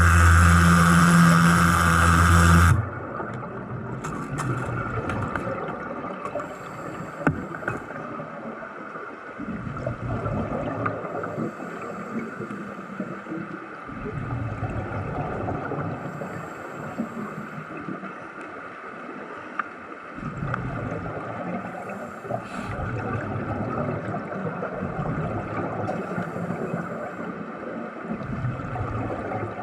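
A loud, even electrical buzz for nearly three seconds, cutting off abruptly, then a muffled gurgling water rush that swells and fades every few seconds.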